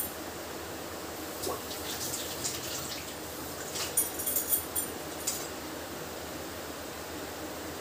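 Moong dal pakodas deep-frying in hot oil in a kadhai: a steady sizzle with scattered crackles and pops, busiest from about two seconds in to about five and a half.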